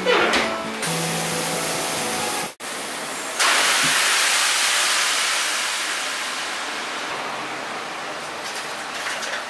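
Steam hissing from a commercial bun-steaming cabinet: a loud hiss sets in suddenly about three seconds in and slowly fades over the following seconds.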